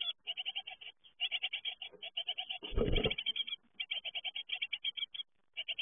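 Great tit nestlings begging inside a nest box: rapid runs of short, high calls, about ten a second, broken by brief pauses. About three seconds in a loud, brief rustle of wings and movement in the box stands out over the calls, as an adult comes in among the chicks.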